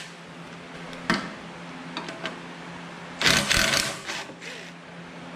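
Cordless drill with a socket extension spinning a bracket bolt out of the engine, in a short run of under a second about three seconds in, after a click about a second in.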